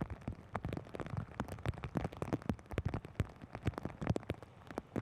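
Rain, drops striking a hard surface close by in many irregular taps, several a second.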